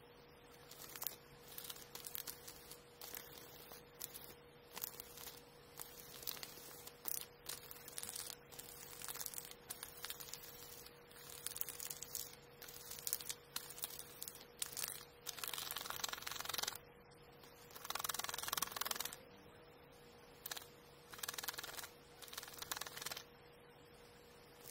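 Sandpaper rubbed by hand over a carved red oak (akagashi) shift knob, in quick irregular strokes with a couple of longer stretches of steady rubbing past the middle. A faint steady hum runs underneath.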